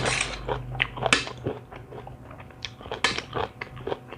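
Close-miked eating: crisp crunching bites and wet chewing of a mouthful of spicy seafood khanom jeen salad with raw vegetables. The crunches come irregularly, loudest at the start and about a second in, over a low steady hum.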